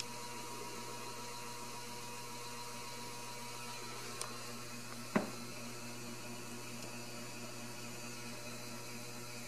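Steady electrical hum with a faint high hiss, broken by a light click about four seconds in and a sharper, louder tap about a second later.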